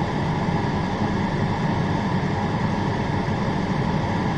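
Steady drone inside a parked vehicle's cab: the engine idling and the air-conditioning fan blowing.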